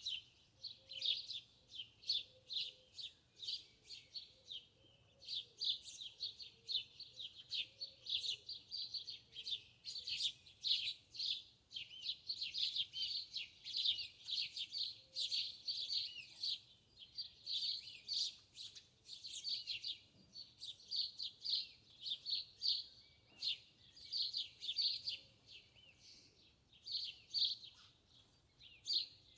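Small birds chirping in a quick, almost unbroken stream of short high-pitched notes, with a brief pause about five seconds in.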